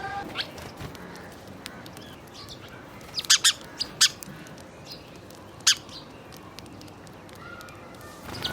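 Birds calling: a cluster of short, sharp, loud chirps about three to four seconds in and another near six seconds, with fainter calls in between.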